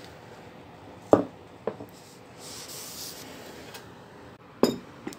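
A plate and tea glasses on saucers being set down on a tabletop: a few short, sharp knocks about a second in and again near the end, with soft rubbing and handling sounds in between.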